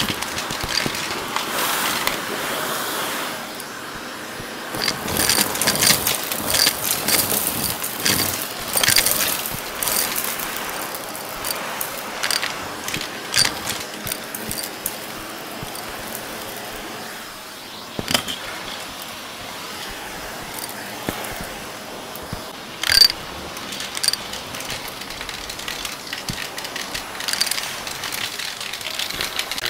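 Shark Navigator XL upright vacuum running through its hose wand and crevice tool, sucking up confetti, glitter and small debris that rattle and clatter through the wand in quick bursts. The rattling is busiest in the first half, with one sharp loud clack later on.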